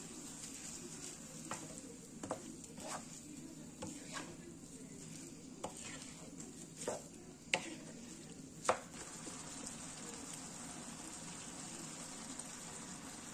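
Food sizzling as it fries in a pan, with a utensil stirring and knocking against the pan about eight times in the first nine seconds; after that only the steady sizzle goes on.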